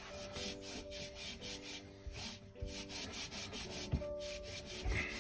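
Polishing paste being rubbed by hand onto a patinated metal label in quick, repeated back-and-forth strokes, about three a second, with soft background music.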